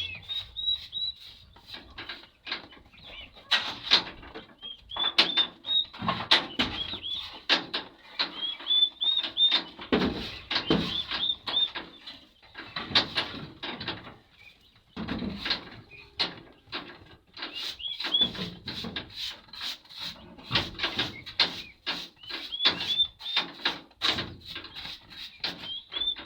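Chicks peeping in short, high, repeated chirps over irregular scraping, rustling and knocking as litter and dust are cleared out of the chick house by hand.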